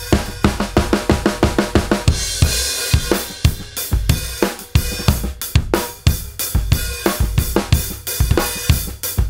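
A drum kit being played, led by a Rogers Powertone 20-inch bass drum kicked hard along with snare and cymbals. A fast, even run of strokes in the first two seconds gives way to a cymbal crash, then a steady groove with heavy kicks.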